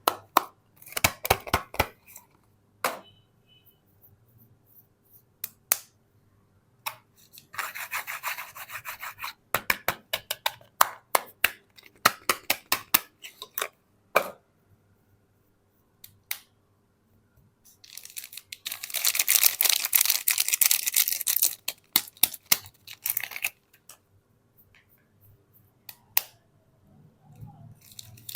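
Soap bars and their wrapping being opened and handled by hand: a run of short crackles and clicks, with a longer scraping rasp about two-thirds of the way through.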